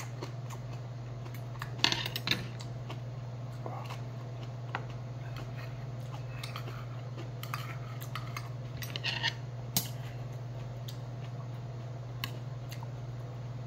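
Stainless steel chopsticks and spoon clinking against small steel bowls, a handful of scattered clinks with the loudest about two seconds in and around nine to ten seconds in. A steady low hum runs underneath.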